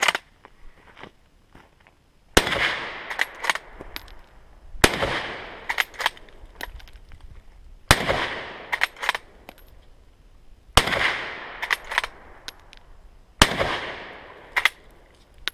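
A K98k Mauser bolt-action rifle firing five 8mm Mauser rounds, spaced about two and a half to three seconds apart, each shot followed by a long echoing tail. Between shots come the smaller clacks of the bolt being worked to chamber the next round.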